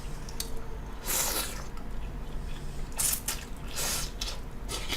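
A person slurping ramen noodles and broth, about three wet slurps in a row.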